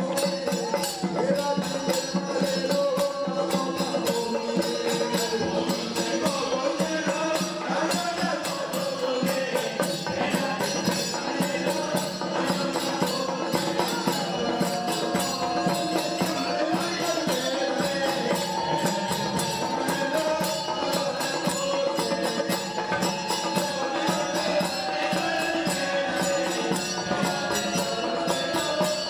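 Padayani ritual music: frame drums (thappu) beaten in a rapid, steady rhythm under a group of voices chanting a ritual song.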